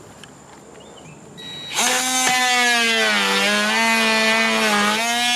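Ryobi cordless oscillating multitool switched on, running with a loud, steady buzz for about three and a half seconds; its pitch sags a little in the middle and comes back up before it cuts off near the end.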